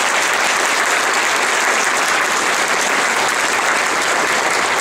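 Lecture audience applauding, a steady even clapping.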